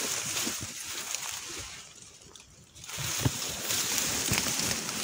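Dry reed stalks rustling and crackling as a person pushes and steps through a reed bed, with a short lull about two seconds in, then more rustling with a few snaps.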